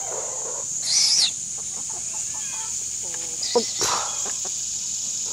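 Chickens clucking in short, scattered calls over a steady high drone of insects, with one brief higher-pitched call about a second in.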